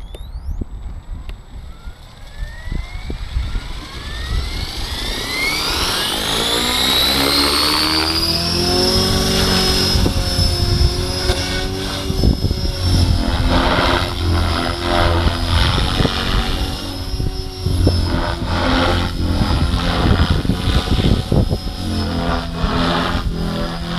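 Gaui X5 electric RC helicopter spooling up: the motor and gear whine rises steadily for about eight seconds, then holds at a steady pitch as the rotor on its Switch 523mm blades reaches head speed. Wind rumbles on the microphone throughout.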